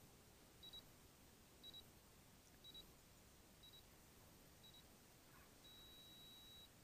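Faint high electronic beeps, about one a second, then one longer beep of the same pitch near the end, over near silence.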